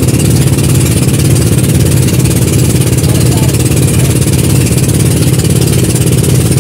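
Boat engine running at a steady speed, loud and close, with a fast, even chug.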